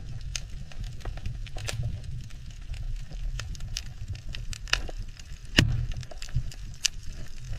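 Underwater reef ambience: irregular sharp crackling clicks, several a second, over a low steady rumble of water, with one louder click about five and a half seconds in.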